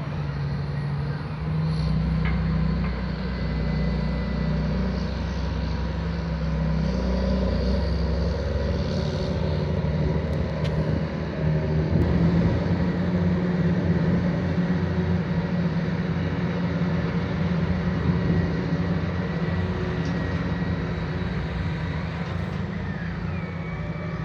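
Diesel engines of large loader tractors running steadily under load, their pitch and loudness shifting a little as they work the silage pile.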